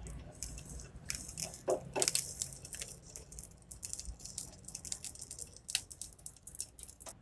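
Strips of lemon peel dry-roasting in a hot nonstick pan and stirred with a wooden spatula: irregular light crackles, scrapes and taps, a little louder about two seconds in.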